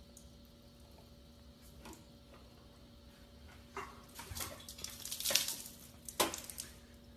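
A cup knocking and clattering against a refrigerator's door dispenser as it is pushed against the lever. A few scattered knocks come first, then a cluster of clatter about four to six seconds in, over a faint steady hum.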